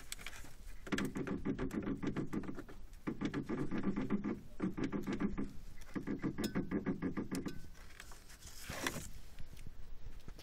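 Rapid rattling knocks from the front end of a Škoda Octavia A7, in four bursts of a second or two each: the knock that the owner puts down to the radiator.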